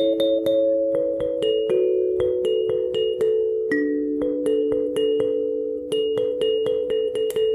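Kalimba music: a slow melody of plucked metal tines, each note starting with a light click and ringing on under the next.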